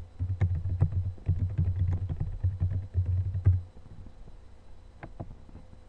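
Typing on a computer keyboard: a quick run of keystrokes that stops shortly before four seconds in, followed about a second later by a couple of lone clicks.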